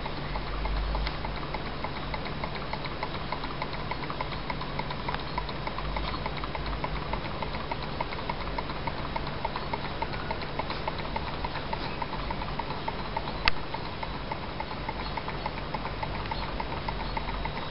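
Small Stirling engine model running on a lamp's heat, its moving parts giving a fast, even, light ticking. One sharp click stands out about thirteen seconds in.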